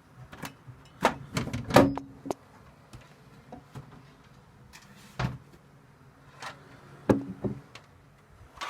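A run of sharp knocks and clatters, four close together about a second in and several more from about five seconds on, over a faint steady low hum, the buzz of a Cooler Master G700 power supply.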